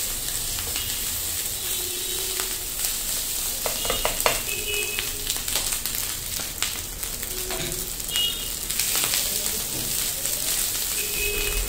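Fried rice with meat and vegetables sizzling in a non-stick frying pan, a steady high hiss, while a plastic slotted spatula stirs and scrapes through it with scattered knocks against the pan.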